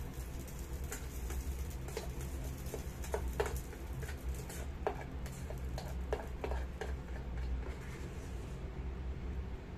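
Plastic rice spatula scraping and tapping against the inside of a small nonstick electric pan as fried rice is scooped out: irregular clicks and scrapes over a steady low hum.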